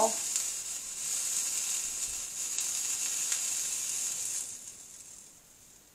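Flux and molten solder sizzling under a hot soldering iron tip as a solder bead is run along the copper-foiled seam of a stained glass panel. A steady high hiss that fades out about four and a half seconds in.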